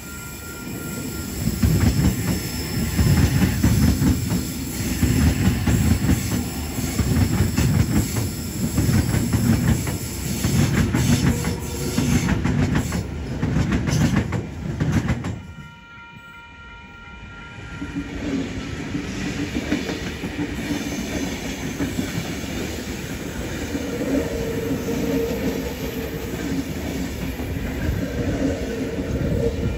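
A train passing close by, its wheels clattering over the rail joints in a fast, pulsing rhythm. About halfway through this gives way to a steadier drone with a few held tones, another train approaching and growing louder toward the end.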